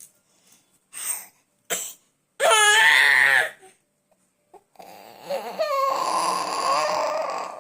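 Baby boy crying: two brief noises, then a loud wavering cry about two and a half seconds in, and a longer, strained cry from about five seconds on.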